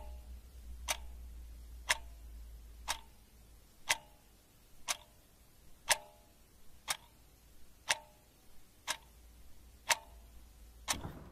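Wall clock ticking steadily, one sharp tick a second, some ticks with a brief ring.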